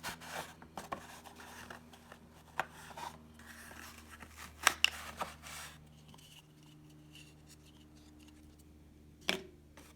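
Cardboard and plastic packaging of a trading card box being handled and worked open: light rustling and scraping with a few sharp clicks, the loudest about halfway through.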